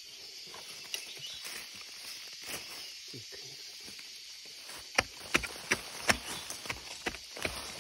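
A hand digging tool chopping into the soil at the base of a bamboo clump to dig out a sweet bamboo shoot: a quick run of sharp strikes, about three a second, starting about five seconds in. Before that, only a steady high hiss from the forest.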